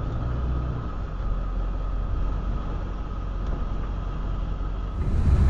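Ford F-350 Super Duty dually pickup rolling slowly at about 13 mph, heard from the dashboard camera inside the cab: a steady low engine and road rumble with a faint steady whine over it.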